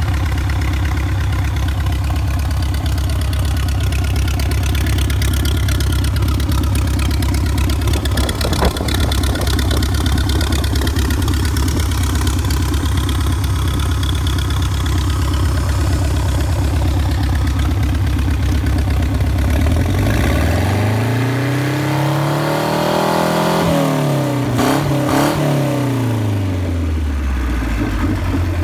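1986 MerCruiser 3.0 L (181 cu in) inline four-cylinder marine engine running on a test stand at a steady idle, then revved once about two-thirds of the way through: the pitch rises for a few seconds and falls back to idle near the end.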